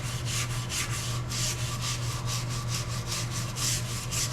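Brass wire brush scrubbing a cast iron lathe slide wet with an automatic-transmission-fluid and acetone slurry, in quick back-and-forth scratching strokes, about four to five a second, as it works rust and stains off the metal. A steady low hum runs underneath.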